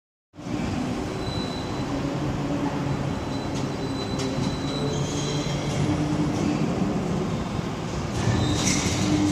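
Overhead crane travelling along its runway rails with a steel coil hanging from its C-hook: a steady mechanical rumble with a thin high whine, growing a little louder near the end.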